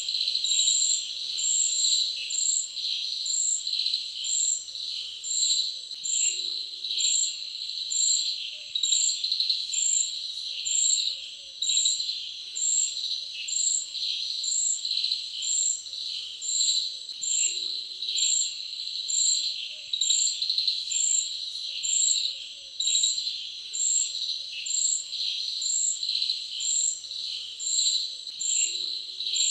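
Insect chorus, crickets-like: a dense, steady high trilling, with a sharper high chirp repeating a little more than once a second throughout.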